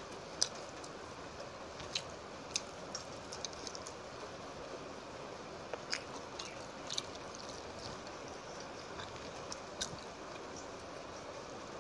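Close-miked eating by hand: scattered wet clicks and smacks from chewing and from fingers mixing water-soaked rice (panta bhat), the sharpest about half a second in, over a steady hiss.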